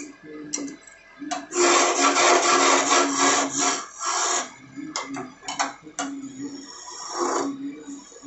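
Wood lathe spinning a wooden spindle while a hand-held turning tool cuts into it: a loud rough scraping of the cut from about one and a half to four and a half seconds in, then shorter scrapes and light taps. Under it the lathe runs with a steady hum.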